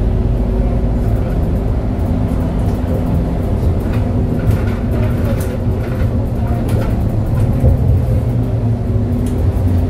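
Inside an Edison Fibird city bus while it drives: a steady low drone from the drivetrain and road, with scattered light rattles and clicks from the cabin.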